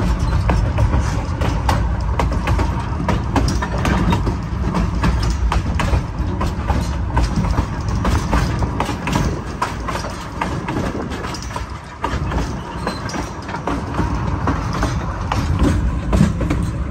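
Narrow-gauge passenger train car rolling along the track: a steady low rumble from the wheels and running gear, with frequent irregular clicks and knocks from the rails.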